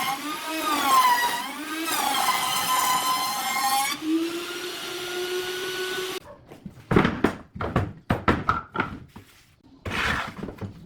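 An electric power tool's motor whining loudly, its pitch dipping and recovering as it works under varying load, then cutting off about six seconds in. A series of irregular knocks and clatters follows.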